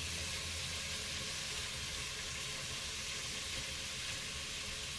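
Pieces of pork kidney sizzling in the hot bowl of a Moulinex Cookeo multicooker on its browning setting: a steady, even hiss.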